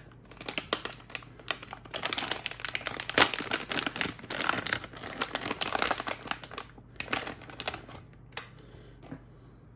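Hands handling small plastic server parts, the fan modules for the server: a dense run of quick clicks and rattles with some rustling, stopping about eight and a half seconds in.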